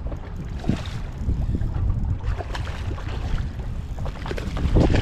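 Wind buffeting the microphone on an open boat, a steady low rumble, with a few brief knocks.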